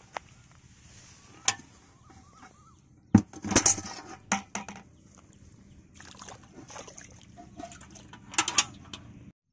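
Metal bucket clanking and its handle clinking as it is dipped into muddy drain water and filled. There are sharp knocks now and then, with a loud cluster about three seconds in and another near the end.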